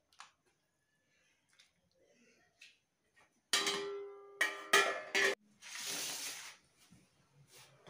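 Steel utensils clanking: a serving spoon strikes steel plates and a steel pot, four ringing clangs in under two seconds, followed by about a second of hiss-like noise.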